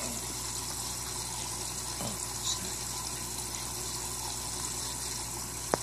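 Steady rush of running water with a low hum underneath, from an aquaponics system's flowing water and pump. A sharp click just before the end.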